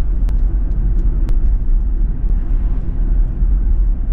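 Steady low road rumble of tyres and wind heard inside the cabin of a Ford Mustang Mach-E cruising at speed, with no engine note since the car is electric. A couple of faint ticks about a second apart come in the first second and a half.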